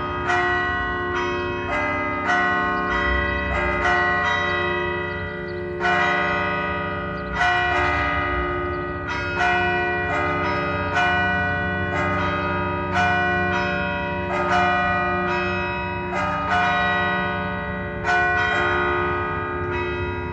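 Several church bells ringing together, struck about once a second, their tones of different pitches overlapping and ringing on between strikes.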